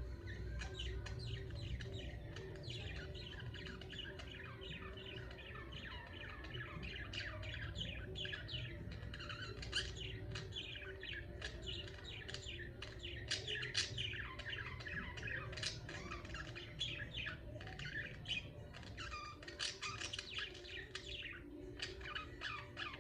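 Pet budgerigars chirping and chattering: many quick, overlapping high calls, busiest in the second half, over a low steady hum.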